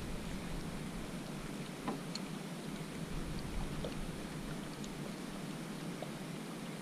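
Steady hiss of wind and sea water around a small outrigger fishing boat, with a few faint scattered ticks.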